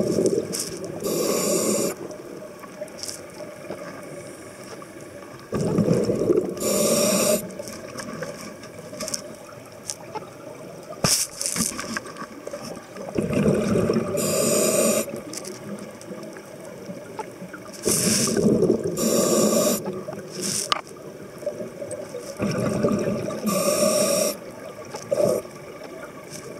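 Scuba regulator breathing underwater: a short hiss on each inhale and a bubbling rush on each exhale, about five breaths at roughly one every five seconds.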